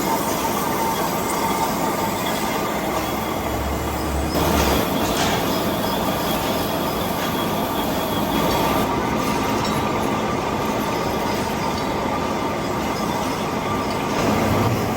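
Manual machine tool cutting metal: a steady, dense mechanical noise with faint whining tones and a light squeal running through it.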